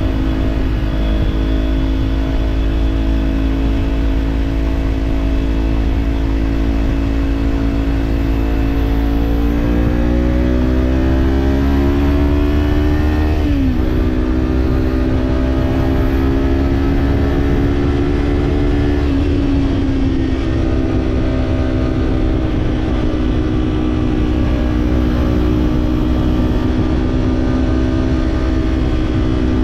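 Kawasaki parallel-twin motorcycle engine with a slip-on exhaust, running at steady cruising revs, over a low wind rumble. About a third of the way in, the revs climb for a few seconds, then drop sharply at an upshift, and the engine settles back to a steady pull.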